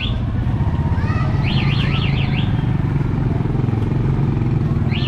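Motorcycle engine idling steadily close by, with an even low putter. A brief run of high, rapid up-and-down chirps comes about a second and a half in.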